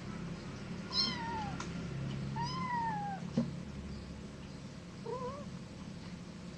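Domestic cat meowing three times: a falling meow about a second in, a longer arching meow in the middle, and a short one near the end. A sharp tap comes just after the second meow.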